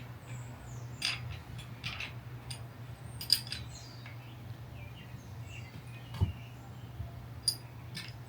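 Scattered clicks and taps from tools being worked on a bicycle's front wheel to get it off, the sharpest about three seconds in. Faint bird chirps and a steady low hum underneath.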